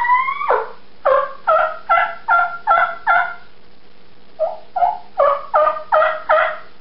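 Yelps on a mouth-blown diaphragm turkey call: one opening note, then two series of about six yelps each with a short pause between. Each note breaks from a high note down to a low one.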